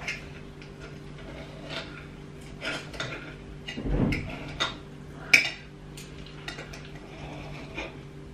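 A knife and fork clinking and scraping on a plate as raw beef is cut into cubes: irregular sharp clicks, the loudest about five seconds in, with a low dull thud just before it. A steady hum runs underneath.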